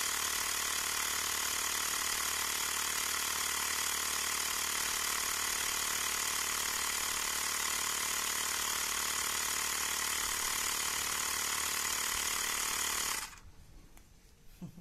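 Xiaomi Mi portable electric air compressor running steadily as it inflates a motorcycle tyre, then cutting off suddenly about 13 seconds in: the automatic shut-off on reaching its preset 29 PSI.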